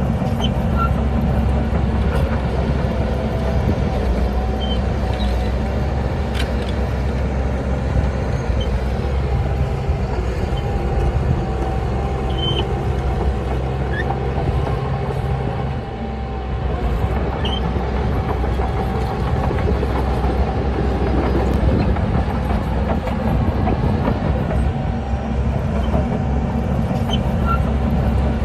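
Heavy diesel earthmoving machinery running steadily under load, its engine note easing briefly about halfway through. Short high squeaks and clicks come through now and then.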